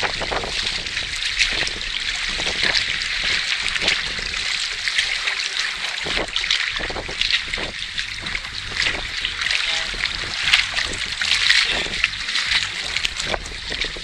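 Water lapping and splashing: a steady wash with many small splashes.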